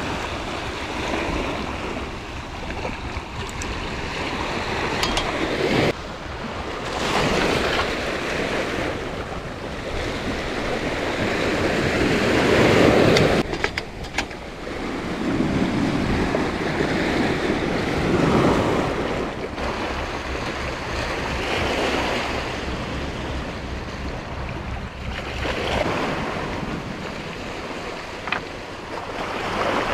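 Sea waves surging and washing over a rocky shore, swelling and ebbing every few seconds, with wind.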